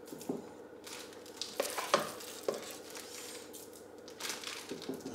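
Mashed potato being spooned onto a mince-and-pea cottage pie filling with a plastic serving spoon: several light scrapes and knocks of the spoon against the bowl and dish, over a steady low hum.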